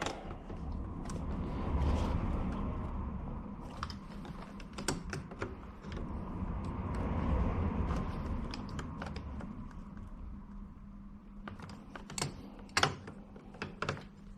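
Irregular small clicks and taps of plastic and metal wiper-linkage parts being handled and pressed together, as a linkage socket is forced against a ball joint on an aftermarket wiper mechanism that it will not pop onto. There are a few sharper clicks near the end.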